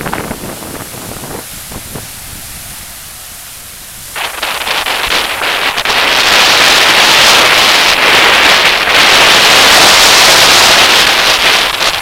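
Strong wind and small breaking waves on a lake shore: gusty wind buffeting the microphone at first, then from about four seconds in a loud, steady hissing wash of surf and spray that cuts off suddenly at the end.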